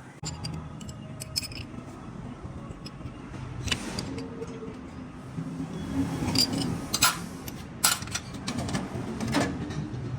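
Metal parts and hand tools clinking and knocking: a scattered series of sharp metallic clicks, loudest around six to nine seconds in, over a low steady hum.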